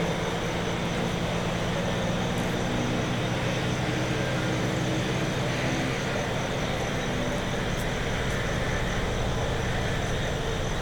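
Urban residential ambience of steady traffic noise, with a low engine hum that fades out about six to seven seconds in. A faint high steady whine sits over it.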